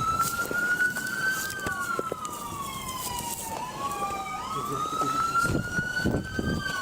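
Police car sirens in a slow wail, two of them rising and falling out of step with each other, with some low knocks and rustling near the end.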